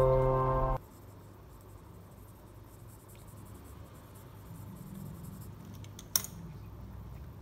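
Soft background music cuts off just under a second in; then a pencil scratches faintly on paper as it shades a drawing, with one sharp click about six seconds in.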